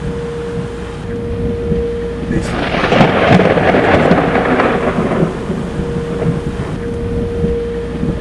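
A thunderclap that crackles in about two and a half seconds in, then rumbles and fades over about three seconds, over a steady background hum.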